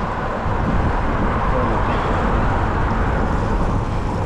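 Steady rushing wind and road noise from riding a bike, with a heavy low rumble.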